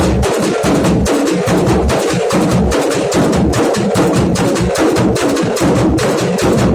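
Dhol drums beaten hard in a fast, unbroken rhythm, about five sharp strokes a second over deep bass booms.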